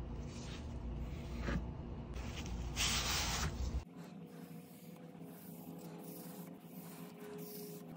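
Foam brush wiping wood stain over bare pine in soft rubbing strokes, with one louder sweep about three seconds in; after that the strokes are quieter.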